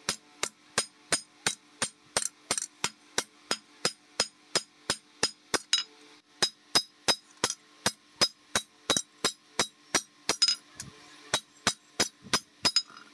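Hand hammer striking a long toothed steel blade laid across a steel anvil block: steady blows about three a second, each with a bright metallic ring. There is a brief break near the end.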